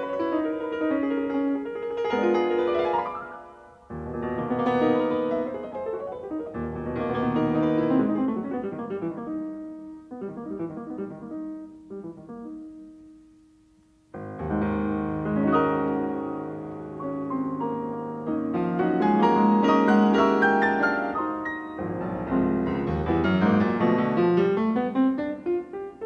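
Background piano music, thinning to a soft passage about ten seconds in and coming back in full about fourteen seconds in.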